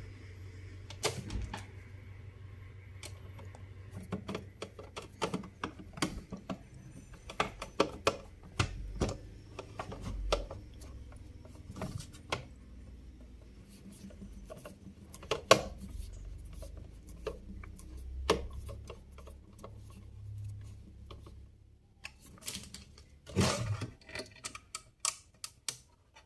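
Irregular clicks and light metallic taps of a screwdriver driving screws into a DVR's sheet-metal cover, with a louder burst of taps near the end. A low steady hum runs underneath and stops a few seconds before the end.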